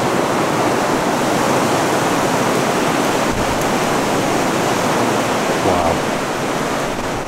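Running water rushing steadily, a dense even noise with no rhythm or gusts.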